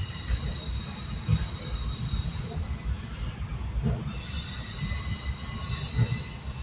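A long train rolling past a railroad crossing: a steady low rumble with irregular thumps of the wheels on the rails, and a high steel-wheel squeal over it that fades about two and a half seconds in and comes back strongly about four seconds in.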